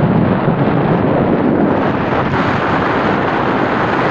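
Steady rushing noise of a vehicle on the move, with wind buffeting the microphone.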